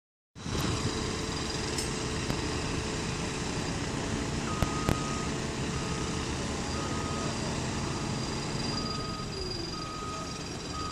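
Heavy diesel engine of a mobile crane running steadily while hoisting a slung concrete block. From about halfway through, an electronic warning beeper sounds about once a second. Two sharp knocks come just before the beeping starts.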